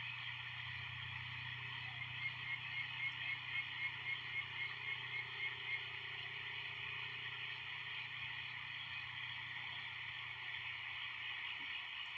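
An animal call repeated rapidly: about fourteen short, high notes at roughly four a second over three and a half seconds, above a steady high hiss.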